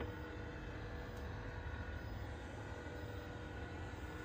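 HP Smart Tank 515 all-in-one printer's scanner motor running steadily, a whine of several steady tones over a low hum that starts suddenly and stops near the end. It is scanning the print-head alignment page, the last step of the alignment.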